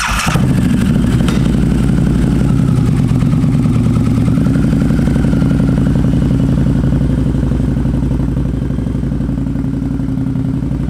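2002 Harley-Davidson V-Rod's liquid-cooled 60-degree V-twin running steadily at low revs.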